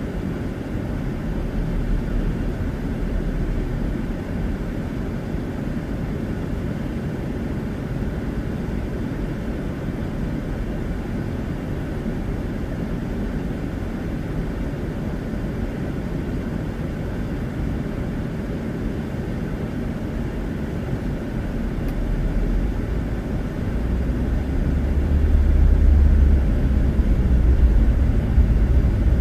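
Car in motion heard from inside the cabin: a steady low rumble of road and engine noise, which grows louder and deeper near the end.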